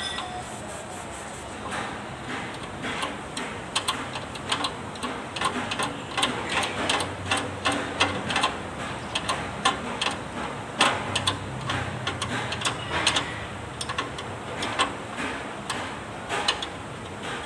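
A fuel filter with a glass sediment bowl being fitted and tightened by hand on a tractor engine: a run of irregular small clicks and taps of the parts being handled.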